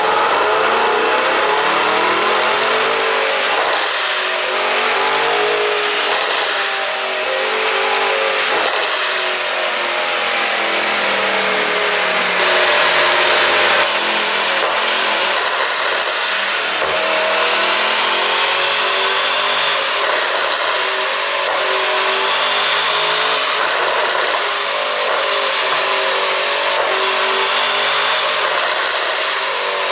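Mercedes-AMG GT63 S twin-turbo V8 exhaust running, its engine speed rising and falling, with a few sharp cracks from an ECU tune that adds exhaust pops.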